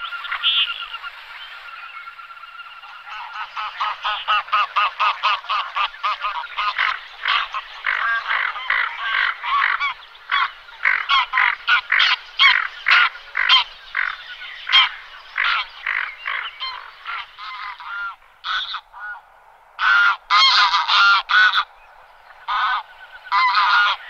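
A flock of wild geese calling: a dense run of overlapping honks, then a few loud separate calls near the end.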